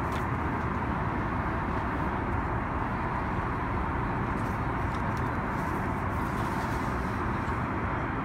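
Steady cabin noise inside an Airbus A380 airliner: an even rumble and hiss of engines and airflow, with a few faint rustles of menu pages being turned.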